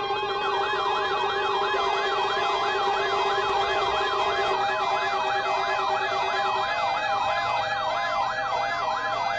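Electronic yelp-type sirens sweeping quickly up and down, about three sweeps a second, more than one overlapping, over several steady held tones. A steady lower tone drops out about two-thirds of the way in.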